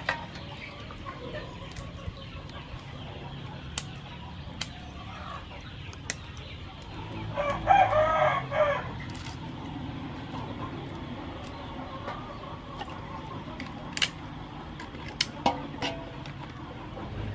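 A rooster crows once, about halfway through, over scattered light clicks and knocks of crab pieces being handled in a metal basin of water.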